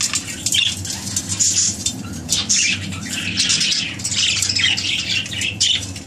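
Budgerigars chirping and chattering without a break, a dense stream of short high calls.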